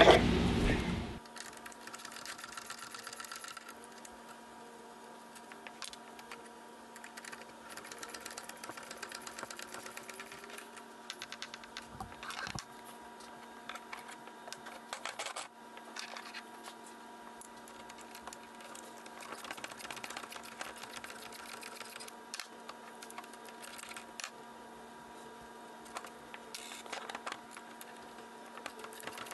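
A 9/16 socket ratchet clicking in short runs of rapid clicks, on and off, as the nuts holding the ring gear of a golf cart differential are loosened. A faint steady hum runs underneath.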